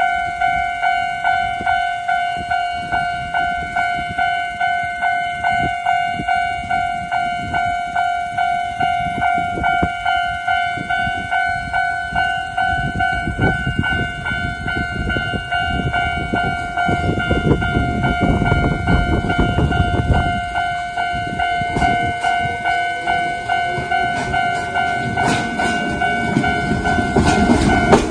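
Railway level crossing's electronic warning bell ringing at a fast tempo in quick, even strokes. Midway, a Konan Railway Owani Line train passes over the crossing with a rumble and wheels clattering on the rails while the bell keeps ringing.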